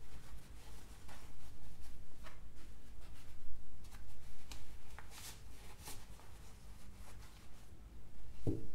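Hands handling small cloth drawstring pouches, loosening the cords and rustling the fabric, with scattered light clicks and taps; a short low knock near the end as a small case is taken out.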